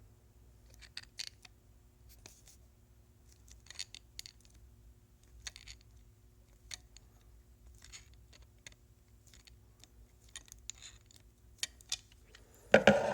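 Channel-lock pliers squeezing the metal base of a vape tank back together: scattered light metal clicks and scrapes, then a louder clatter near the end.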